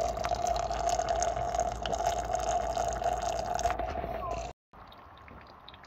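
Hydraulic fluid streaming and dripping from a loosened hose fitting on an excavator into a bucket, over a steady hum. It cuts off suddenly about two thirds of the way through, leaving a much quieter background.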